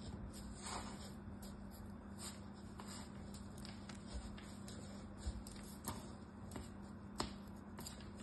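Kinetic sand crunching and crumbling as hands squeeze and press a lump of it, an irregular run of faint crackles and sharp ticks, with a steady low hum underneath.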